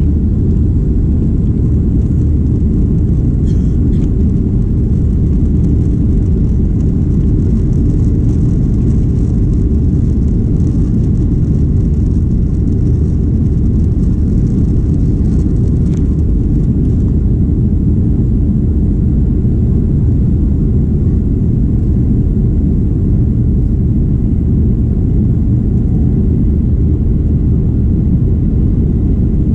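Steady low rumble of a Boeing 737-800's CFM56-7B engines heard inside the passenger cabin, even and unchanging throughout.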